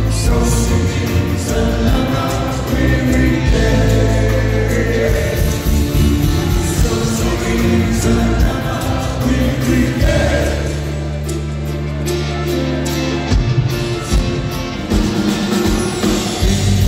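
Live band with keyboards, drums, guitars and bass playing a song, a man singing lead over it, heard through a large arena's sound system from the audience.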